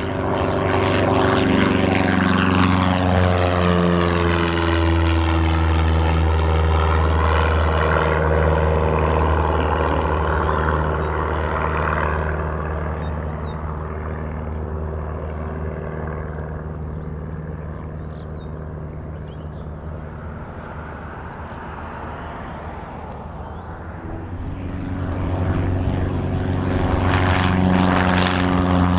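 Single-engine propeller airplane at full takeoff power climbing out past the field, its engine drone dropping in pitch and fading as it moves away. About 25 seconds in, a Piper PA-28 Cherokee's engine grows loud again, rising in pitch, as it lifts off close by at full power.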